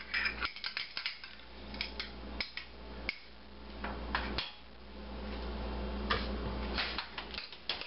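A metal spoon tapping and scraping against a glass bowl and a stainless steel saucepan: a string of small knocks and clinks.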